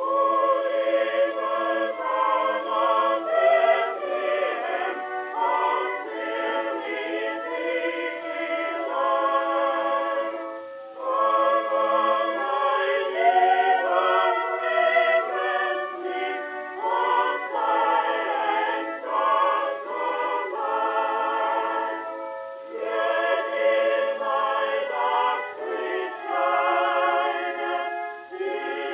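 Background music with several voices singing together in choral style, in phrases with short breaks between them.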